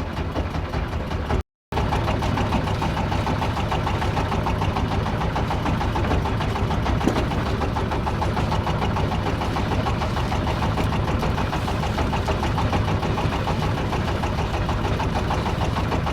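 A fishing boat's engine running steadily at an even pace, with a brief cut to silence about a second and a half in.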